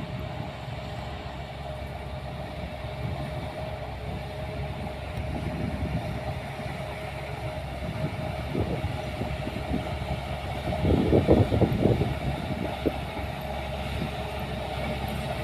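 Engine of heavy earthmoving machinery running steadily with a constant whine, growing louder, with a louder rough, clattering stretch about eleven seconds in.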